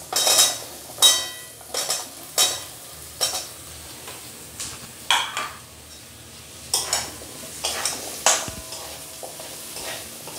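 Cubed raw potatoes tipped into a steel kadai of frying spice paste, then a steel spatula stirring them, with irregular scrapes and clinks against the pan, some ringing briefly. A faint sizzle from the hot oil and masala runs underneath.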